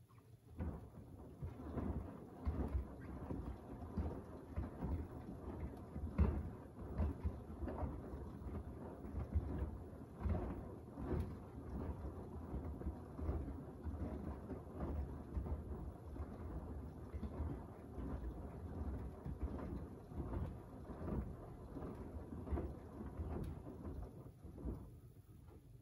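Beko WDR7543121S washing machine's drum turning during the wash, tumbling wet, sudsy laundry through water with uneven sloshing and soft thuds. It starts about half a second in and stops near the end.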